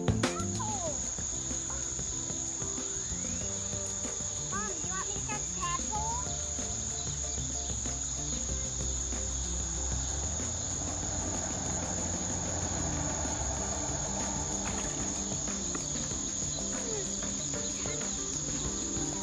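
Crickets trilling in one steady, high-pitched, unbroken note, with a few short bird-like chirps a few seconds in, over soft background music.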